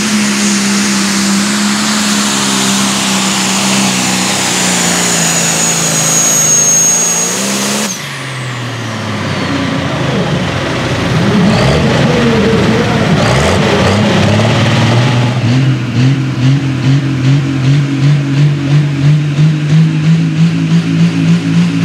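Turbocharged diesel pulling-tractor engine run hard under full load, with a high turbo whistle climbing over the engine note. After an abrupt change about eight seconds in, a tractor diesel idles and revs unevenly at the starting line, then holds a steady run that throbs about three times a second.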